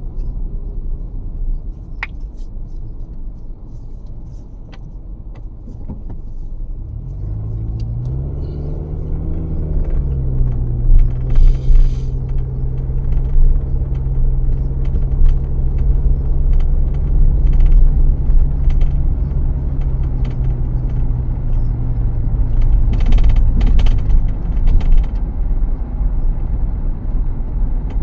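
A car driving, with a steady low road rumble. About seven seconds in, a low hum joins it, rises briefly in pitch, then holds level until near the end.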